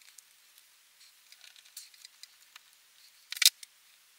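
Small hand-handling sounds as stiff Teflon seal rings are worked onto a metal BMW VANOS piston: faint rubbing and light ticking, with a sharper cluster of clicks about three and a half seconds in.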